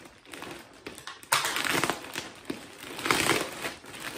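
A shipping bag being opened by hand: crinkling and rustling that gets suddenly louder about a second in and carries on in uneven bursts.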